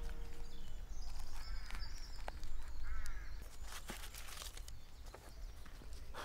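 Outdoor ambience with birds calling in short, separate calls and a few light clicks and rustles. Near the end comes a short puff of breath blown across a book.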